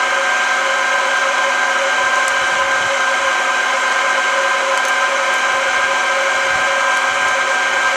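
iRoast hot-air coffee roaster's fan running steadily with a constant whine, churning the beans. A few faint, sharp cracks come through: the beans are starting to crack.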